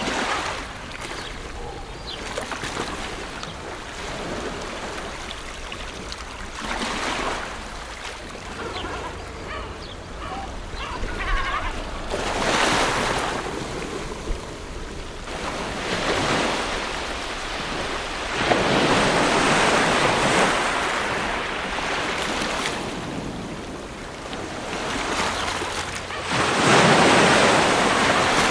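Ocean waves breaking and washing onto a beach. The surf swells and falls every few seconds, and the loudest surge comes near the end.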